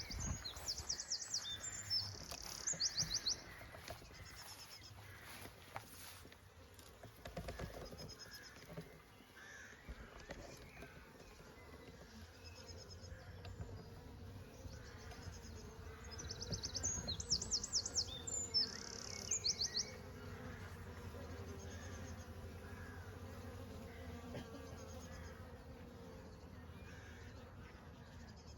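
Honey bees buzzing steadily in a continuous low hum. A bird sings bursts of rapid high trills twice, near the start and a little past the middle, the loudest sounds.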